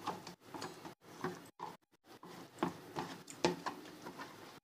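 A spoon stirring flour and water in a bowl, faint irregular taps and scrapes against the bowl as the flour is mixed into a thin, lump-free paste.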